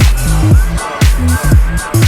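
Electronic dance music with a heavy kick drum on each beat, about two beats a second, over a deep bassline.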